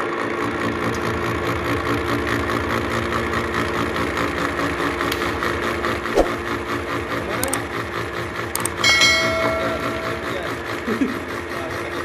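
Milling machine running with a disc gear cutter cutting a tooth space into a duralumin spur-gear blank: a steady motor and spindle hum under continuous cutting noise. A knock comes about six seconds in, and a short higher-pitched tone sounds for about a second near nine seconds in.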